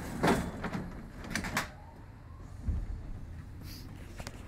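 Sliding doors of a Paris Metro line 6 train: knocks and clatter near the start, then a low, heavy thud about two-thirds of the way in as the doors shut, followed by the train's steady low rumble.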